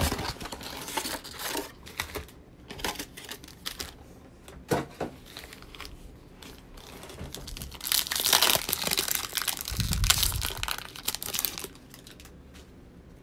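Cardboard box flap opened and foil trading-card packs handled with light rustling and clicks, then a foil pack torn open with a loud crinkling tear about eight seconds in, lasting a few seconds.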